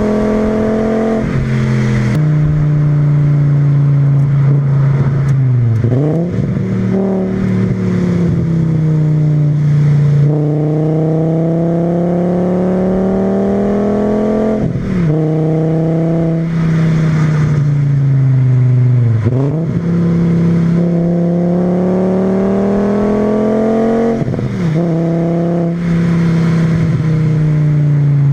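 VW VR5 20-valve five-cylinder engine, breathing through a K&N panel filter and a straight-through exhaust with a Milltek resonator, pulling hard under load. The engine note climbs steadily in pitch several times, with about four brief sharp dips in revs between pulls, typical of gear changes.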